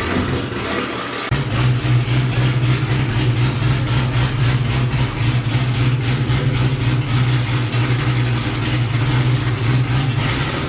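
Supercharged V8 car engine idling steadily. About a second in its note changes and grows louder, then holds a steady hum.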